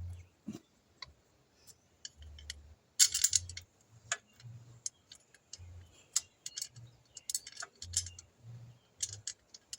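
Scattered small metallic clicks and taps from tools and parts being handled while the motorcycle is put back together, with a burst of rattling about three seconds in and soft low thumps in between.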